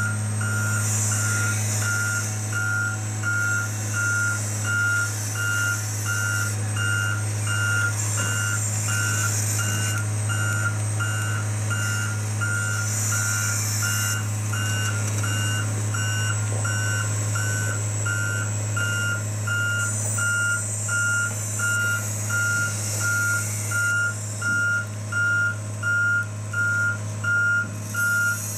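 Tigercat tracked harvester's travel alarm beeping about three times every two seconds as the machine moves, over its diesel engine running steadily.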